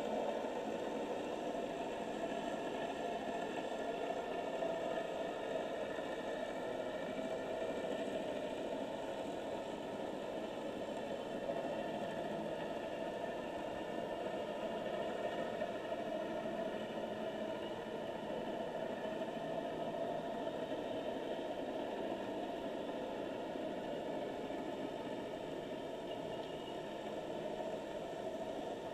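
Steady underwater noise picked up by a submerged camera in its housing: an even hiss with a faint, constant hum of several steady tones and no distinct events.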